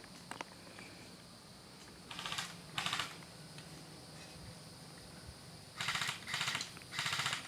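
Airsoft electric rifles firing short full-auto bursts, a fast rattle of clicks. There are two bursts about two seconds in and three close together near the end.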